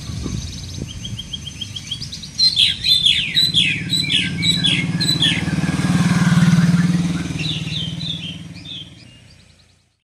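Small caged parrots chirping in runs of rapid, sharp high calls, starting about two seconds in, with a few more near the end. A motorcycle engine passes close by, loudest around six to seven seconds in, then fading away.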